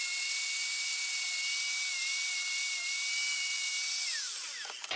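Angle grinder running at full speed with a steady high whine as its disc cuts a notch into PVC pipe held in a vise. About four seconds in it is switched off, and the whine falls in pitch as the disc spins down and stops.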